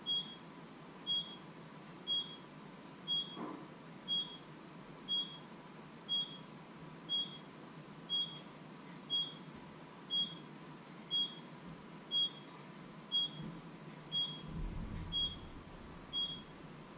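Electronic kitchen appliance alarm beeping: short high beeps, one a second, that stop near the end. A few low thuds of someone moving come just before the beeping stops.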